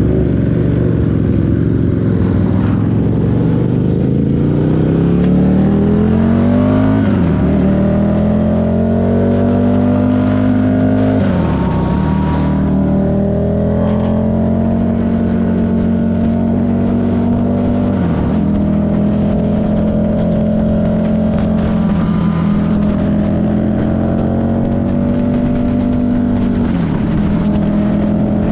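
Buell 1125CR's liquid-cooled V-twin under way, heard from the bike: the revs climb and fall sharply at two upshifts, then the engine holds a steady cruising speed with brief dips in revs three times.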